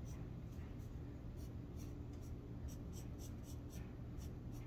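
Pencil scratching on sketchbook paper in a series of short, quick strokes while sketching, over a faint steady low hum.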